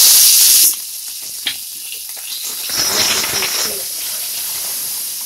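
Curry leaves hitting hot oil in a tempering of mustard seeds, cumin and dried red chillies: a loud burst of spitting sizzle that drops off sharply under a second in, then a steadier, quieter sizzle and crackle of the frying spices.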